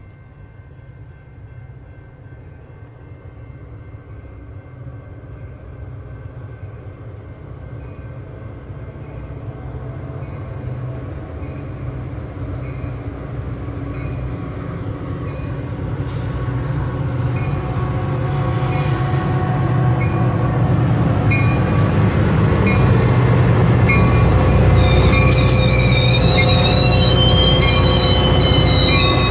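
Metra F40PH-3 diesel locomotive, an EMD 16-cylinder two-stroke, running as it approaches and passes close by at the head of a commuter train, growing steadily louder. High-pitched wheel squeal sets in near the end as the locomotive goes by.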